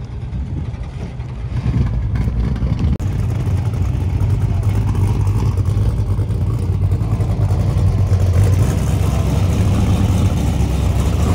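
Classic car and hot rod engines running at low speed as the cars creep past in a queue: a deep, steady rumble that grows louder about two seconds in.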